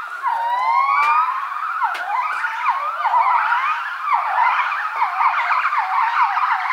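Gibbons singing in chorus. Long rising whooping notes give way, about two seconds in, to fast, overlapping notes that dip and climb, several animals calling together.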